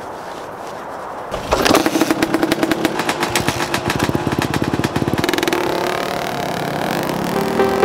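Motocross dirt bike engine starting about a second and a half in, then running with rapid, even firing. Music comes in near the end.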